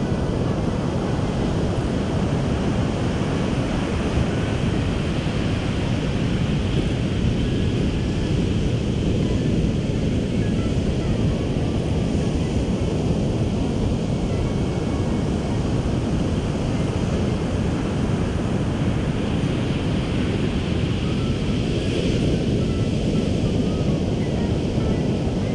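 Ocean surf washing steadily, with wind buffeting the microphone in a low, continuous rush.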